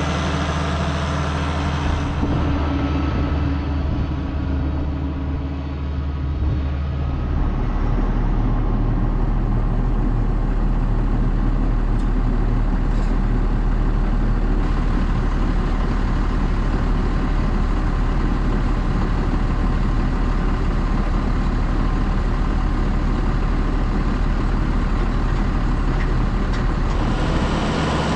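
Farm tractor diesel engine running steadily. About seven seconds in the sound shifts to a deeper, more even drone, and it shifts back near the end.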